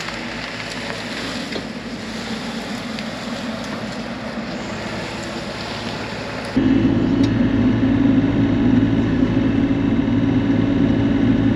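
Bobcat E42 mini excavator's diesel engine running while it works, with light cracks and clicks over it. About two-thirds of the way through the sound cuts abruptly to a louder, closer, steady engine drone.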